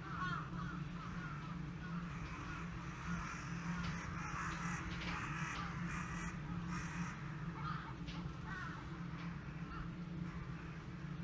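A large flock of crows cawing all at once, many calls overlapping in a dense chorus that is busiest through the middle; the flock has been put to flight by an earthquake. A steady low hum runs underneath.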